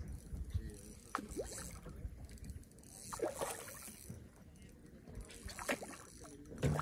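Faint water sounds, lapping and trickling, with a few light knocks.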